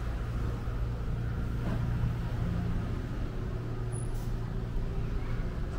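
Street traffic: a motor vehicle running close by, a steady low hum under general street noise.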